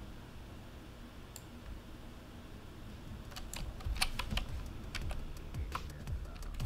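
Computer keyboard and mouse clicking: an irregular run of sharp clicks starting about halfway through, over a low steady hum.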